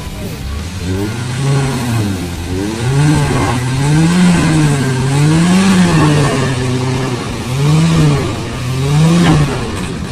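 Daihatsu Gran Max pickup's engine revving up and down in repeated surges, about every second and a half, as the loaded truck labours up a steep muddy slope.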